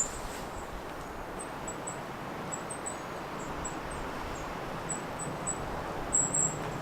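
Goldcrest calls: a series of short, very high, thin notes, sparse at first and bunching more densely near the end.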